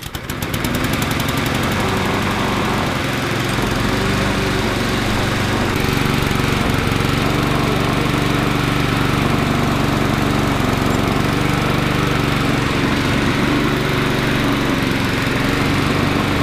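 Honda Izy lawnmower's single-cylinder four-stroke petrol engine catching right at the start and then running steadily. The mower is being tried out on its self-propelled final drive with a newly fitted drive belt.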